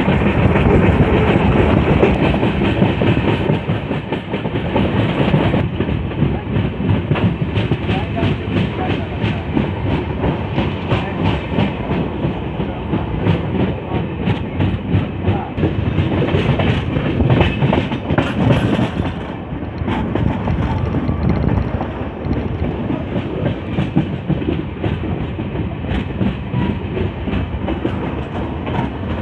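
Passenger train running on the rails, heard from on board: a steady rumble with the wheels clattering over the rail joints.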